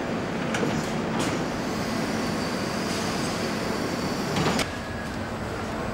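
Engine assembly-line machinery and conveyor running with a steady hum, a few sharp clicks in the first second, and a louder rush of noise at about four and a half seconds that cuts off suddenly.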